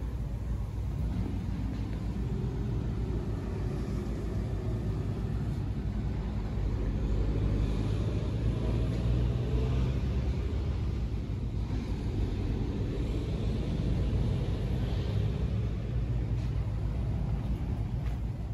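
A steady low rumble with no distinct events, growing slightly louder around the middle.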